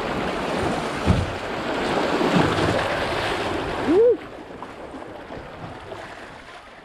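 Rushing water of small river rapids, with a low thump about a second in. Just after four seconds a short rising-and-falling tone sounds, and the rushing cuts off abruptly to a much quieter background.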